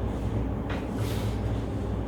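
Steady low mechanical hum from a chiropractic flexion-distraction table applying traction, with two faint brief rustles about a second in.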